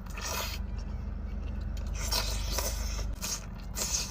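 Spoon scraping against a bowl in irregular short strokes while eating bakso, over a steady low hum.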